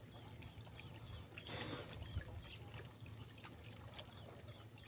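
Faint riverbank ambience: a low steady drone, with a short rustle about one and a half seconds in and a few faint ticks.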